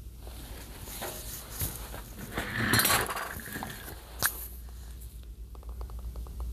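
Handling noise from work on a TV's internals: rustling in the middle, one sharp click about four seconds in, then a quick run of faint ticks near the end.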